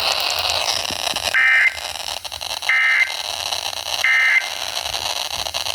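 Emergency Alert System end-of-message signal over FM radio static: three short data bursts of the SAME code, a bit over a second apart, marking the end of the warning broadcast.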